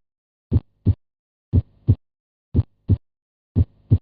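Normal heart sounds, lub-dub, at about one beat a second: four pairs of short thuds. In each pair the first heart sound (S1, mitral and tricuspid valves closing) is followed about a third of a second later by the second heart sound (S2, aortic and pulmonary valves closing).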